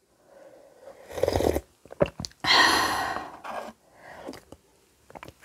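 Close-miked eating sounds of banquet noodles: a rising slurp about a second in and a longer, louder slurp from about two and a half seconds, with a few short clicks between them.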